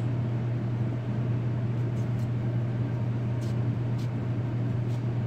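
Steady low mechanical hum from kitchen machinery, with a few faint light clicks from handling fruit and a knife on the board.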